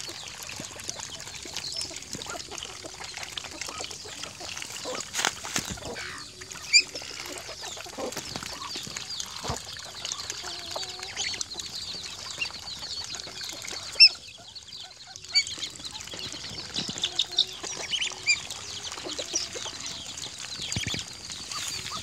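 Chickens and ducks calling together: a steady scatter of short high chirps and peeps with clucking, broken by a few sharp clicks, the loudest about 7 and 14 seconds in.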